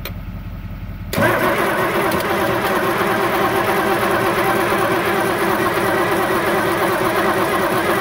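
The diesel engine of an older John Deere scraper being cranked over by its starter, starting about a second in and turning steadily without firing, then stopping abruptly at the end. The injection pump is delivering no fuel to its lines, which is why the engine will not start.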